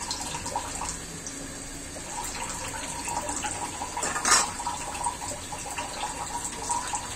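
Lentil piyaju fritters frying in a shallow layer of oil in a black iron wok, a steady sizzle and crackle. A brief sharp sound stands out about four seconds in.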